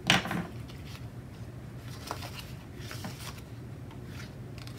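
Sticker book pages being flipped and handled: soft paper rustles, with a louder one at the very start, over a steady low hum.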